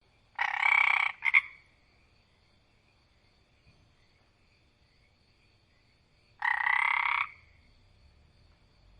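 Frog croaking: a drawn-out rasping croak about half a second in, followed by a short second note, then another drawn-out croak about six and a half seconds in, with quiet between.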